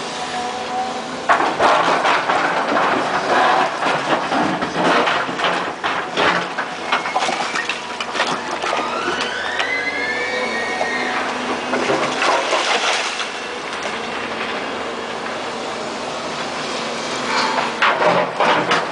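Volvo EC290 excavator's diesel engine working under load while its ripper tooth drags through hard rocky ground, giving repeated stretches of grinding and crunching. A whine rises and then falls near the middle.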